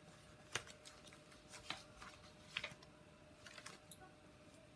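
Scattered light clicks and taps of craft supplies being picked up and moved about on a work table, roughly one a second.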